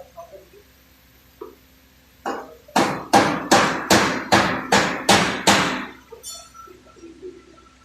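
Hammer blows on sheet metal in body repair, straightening the accident-damaged front panels of a Nissan pickup: two light taps, then a run of about eight hard strikes at roughly two and a half a second.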